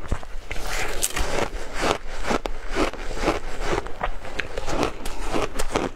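Ice being bitten and crunched between the teeth close to the microphone, a crisp crunch two or three times a second.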